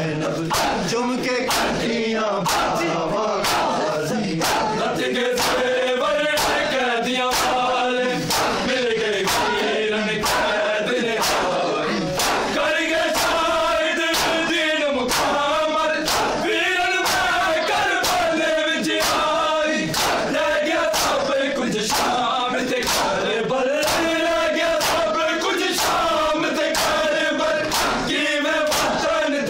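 Matam: a crowd of men beating their bare chests with open palms in unison, a steady rhythm of sharp slaps a little faster than one a second. A mourning lament (nauha) chanted by male voices carries on over the beats.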